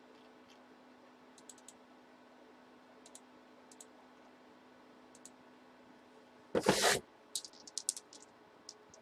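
Faint, scattered clicks of a computer keyboard and mouse over a low steady hum. About six and a half seconds in comes one loud, short clatter, followed by a quick run of clicks.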